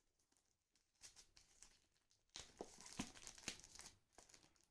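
Faint crinkling and rustling of packaging being handled, in short scattered rustles and light taps, mostly in the second half.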